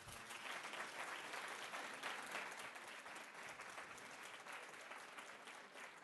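Audience applauding, a steady patter of many hands that fades a little toward the end.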